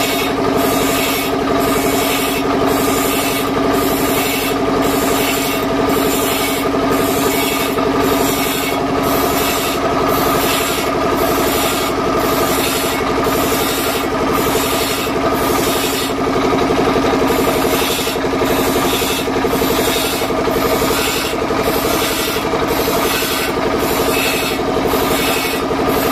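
A sawmill band-saw blade being sharpened on a small belt-driven grinding wheel, one tooth after another, giving a rasping grind about once a second. Underneath is the steady running of the stationary engine that drives the wheel.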